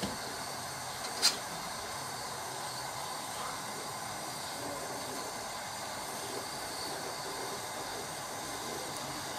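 Steady hiss of a gas burner running at full flame under a pot of molten lead, with a single sharp click about a second in.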